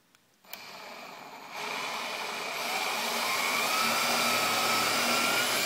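Power drill starting about half a second in and running slowly in reverse, driving a reverse-threaded conical screw-extractor bit into a stripped, corroded screw. Its motor whine gets louder about a second and a half in and then rises gradually in pitch.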